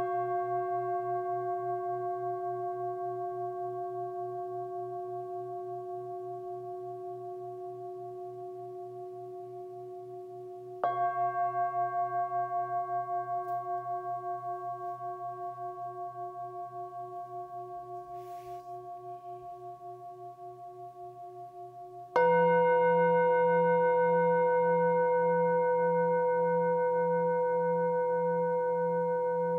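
Singing bowls struck with a mallet, one at a time about eleven seconds apart: one is already ringing, a second is struck about eleven seconds in, and a third, the loudest, about twenty-two seconds in. Each rings on in several overlapping tones that die away slowly with a steady, even wavering.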